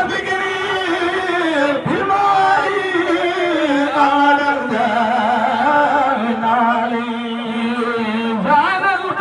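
Men's voices chanting a melismatic Islamic devotional zikr through microphones, with long held notes that waver and bend in pitch, and sharp swoops about two seconds in and near the end.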